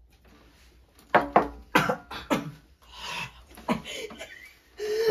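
Several people coughing, gasping and spluttering just after downing shots of harsh liquor, a burst of loud coughs and gasps starting about a second in after a moment of quiet.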